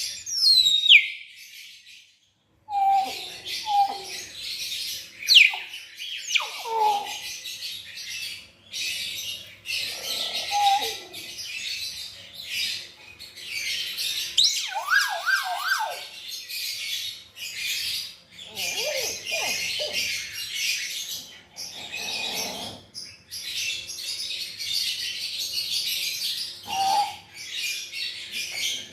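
Common hill myna (beo) calling: loud short whistles and squawks, some sliding in pitch, over a steady dense chatter of high chirps.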